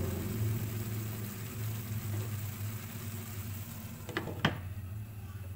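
Glass pan lid set down on a wide pan of simmering rice: two short clinks about four seconds in, over a steady low hum from the stove.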